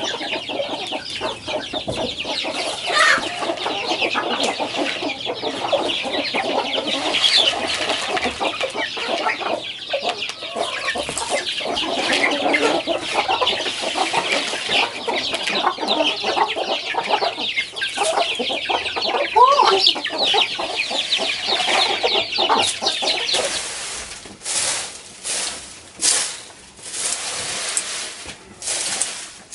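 A flock of chickens clucking, with chicks cheeping, as they peck at grain being scattered for them. Near the end the clucking stops and a grass broom sweeps a dirt path in short scratching strokes.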